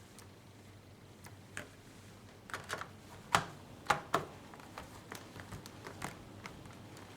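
Irregular sharp clicks and light taps of small hard objects being handled, the loudest few coming close together about three to four seconds in.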